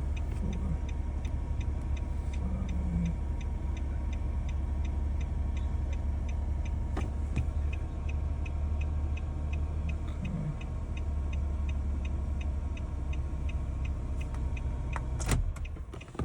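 Car engine idling with a steady low rumble under an even ticking of about two to three ticks a second. A sharp knock comes near the end, after which the rumble drops away.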